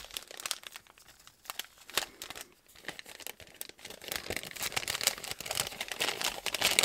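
Brown kraft paper wrapper crinkling and rustling as it is unfolded and pulled open by hand. There are scattered crackles at first, then denser, louder crinkling from about four seconds in.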